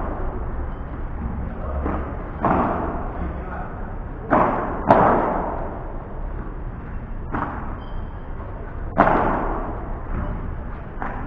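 Padel rally: the ball struck by rackets and bouncing off the court and its walls, a series of sharp pops at uneven intervals, each trailing off in an echo, the loudest about five seconds in.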